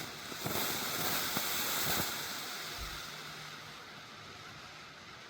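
A colour-smoke stick firework hissing as it burns, with a sharp click at the start; the hiss swells within the first half second, holds for about two seconds, then slowly fades.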